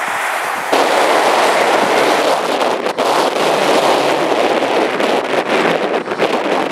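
Airbus A320's jet engines running at high power as it rolls along the runway, a loud steady rush with wind buffeting the microphone. It starts abruptly under a second in, cutting off the quieter sound of a Dash 8 turboprop taxiing.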